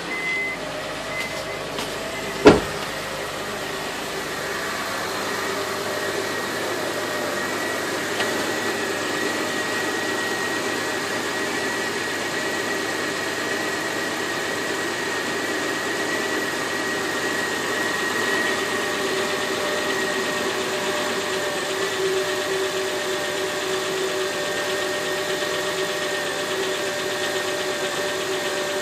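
Honda Ridgeline's 3.5-litre V6 idling steadily with a tick that the owner traced to a piston tapping the bottom of its cylinder; the valves had already been adjusted. A single sharp knock sounds about two and a half seconds in.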